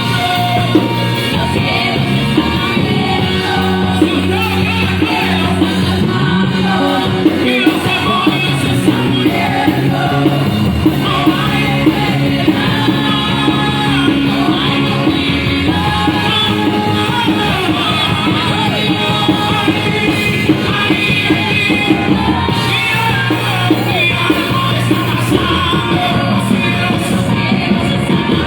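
Live worship band playing, with drum-kit beats over sustained instruments and amplified singing.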